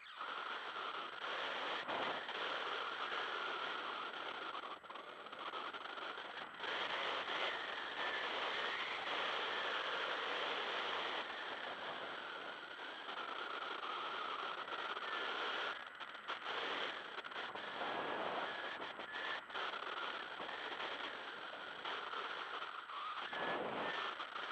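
Wind rushing over the microphone of a camera carried on a paraglider in flight: a steady rushing noise with a few brief dips.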